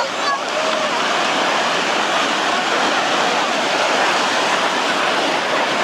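Ocean surf breaking and washing in, a steady loud rush of waves.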